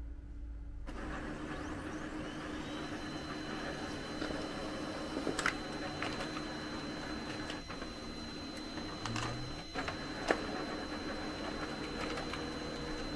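Brother HL-2321D laser printer starting up and printing a page: its motors start running about a second in, a high steady whine joins a couple of seconds later, and the paper-feed mechanism gives several sharp clicks.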